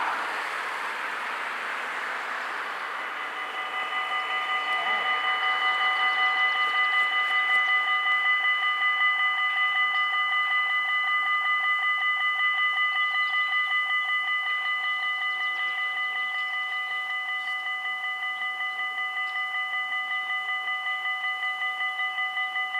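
A car passes the level crossing, then about three seconds in the Dutch level-crossing warning bells start: a fast, even ringing of several high tones, the signal that a train is approaching and the barriers are closing.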